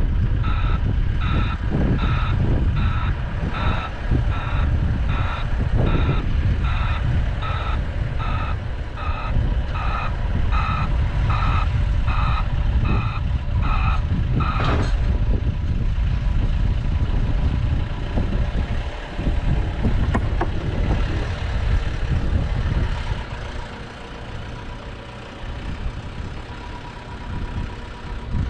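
A vehicle's reversing alarm beeping steadily, about three beeps every two seconds, over a heavy diesel engine running. The beeps stop about halfway through, just before a brief burst of noise, and the engine runs on.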